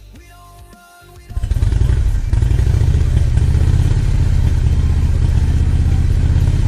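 Power saw starting up about a second in and running steadily and loudly while cutting a glued-up wood panel to length.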